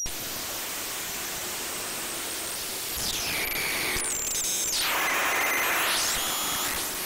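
Breadboard-built Mroztronium New Unusual Oscillator, a DIY noise circuit, playing a loud hiss of static noise that cuts in abruptly. From about three seconds in, whistling tones sweep down and back up twice as a potentiometer on the circuit is turned.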